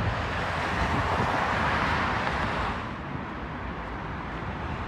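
Road traffic noise: the sound of a passing vehicle swells and then fades about three seconds in, leaving a lower, steady background of traffic.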